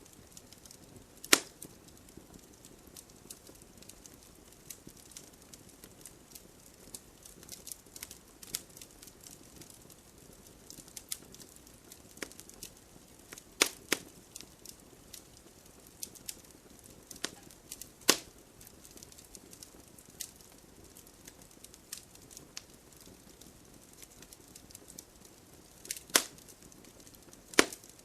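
Fire burning in a fireplace, crackling steadily with many small snaps and a handful of sharper, louder pops spread through it.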